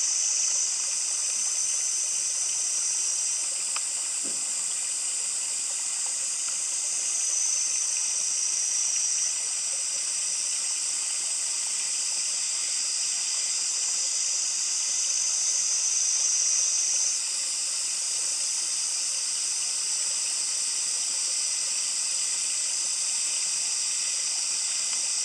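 Cicada chorus: a steady high-pitched hiss, with a shriller tone that comes in and cuts off three times.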